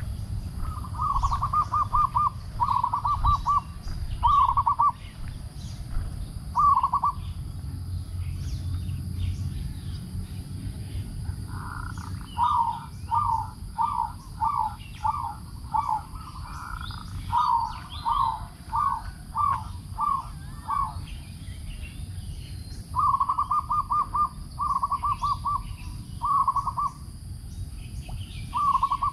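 Zebra dove calling: short rapid trilled coos, all at about the same pitch, come in bursts, with a run of single falling coos at about two a second in the middle.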